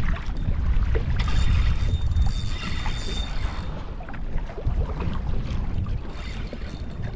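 Wind buffeting the camera microphone with a heavy low rumble, while choppy sea water splashes and rushes along a kayak's hull. The splashing is brightest from about one to three and a half seconds in.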